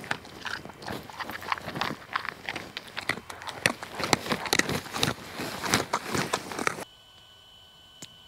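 German Shepherd chewing and crunching food close by: a quick, irregular run of crunches. About seven seconds in it cuts off suddenly to a much quieter stretch with a faint steady high tone.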